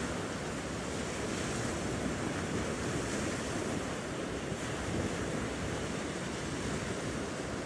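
Steady wash of surf on a shoreline, mixed with wind noise on the microphone.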